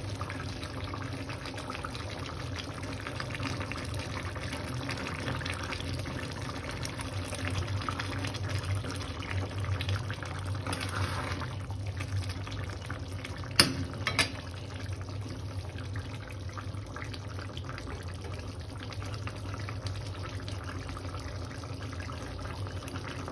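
Chicken curry simmering in a steel pan on a gas stove, a steady bubbling. Two sharp knocks come about halfway through as the spatula hits the pan while stirring.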